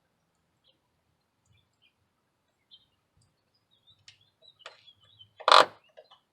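Light clicks of plastic push-pin clips and trim being handled, then one sharp, loud snap about five and a half seconds in; faint bird chirps in the background.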